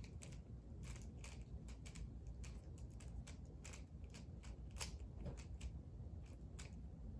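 Rubik's cube being turned fast in a speedsolve: a rapid, irregular run of sharp clicks as the layers snap round.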